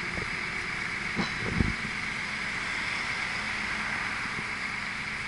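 Mobile crane's diesel engine running steadily as it hoists a heavy load, a low hum under a high hiss, with two short low thumps a little over a second in.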